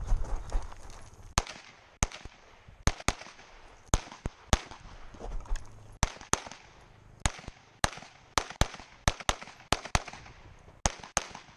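Pistol fired rapidly on a competition stage: about twenty sharp shots, mostly in quick pairs, with short pauses between groups as the shooter moves between targets.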